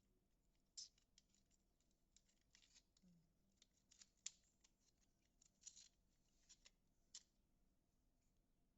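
Faint, scattered clicks and short scratchy snips of small hand craftwork, about a dozen in all. The sharpest come about a second in and a little after four seconds, and they stop a while before the end.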